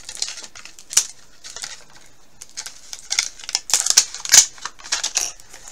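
Thin plastic wrapping crinkling and crackling as it is pulled open by hand, with scattered sharp clicks from the plastic capsule. There is a single click about a second in, and the handling is busiest in the second half.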